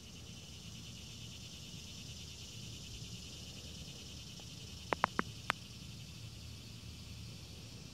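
Steady chorus of trilling insects, a high, finely pulsing sound over a low background rumble. About five seconds in there are four sharp clicks in quick succession.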